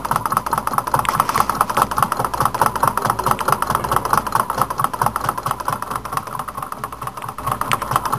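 Homemade Stirling engine running on leftover heat with its flame out, its crank turning steadily with a rapid, even ticking. The thin brass-wire displacer rod is rubbing, which the owner puts down to the rod wearing and getting bumps and ridges.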